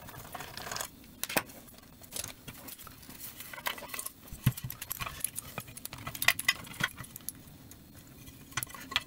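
Irregular sharp clicks, taps and light metallic clinks of hand tools and small parts as a Keychron Q3 aluminium mechanical keyboard is taken apart.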